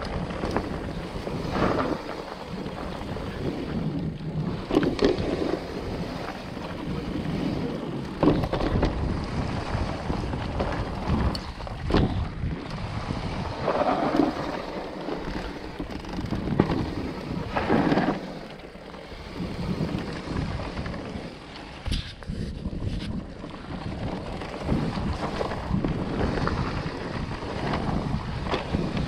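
Wind rushing over the camera microphone while an Orbea Wild FS electric mountain bike runs down a rough dirt descent. Tyre noise over the trail is broken by frequent irregular knocks and clatters from the bike over bumps and roots.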